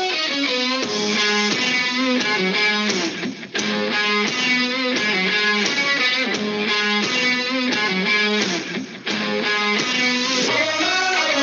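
Upbeat background music led by strummed electric guitar, with a steady beat and two brief breaks.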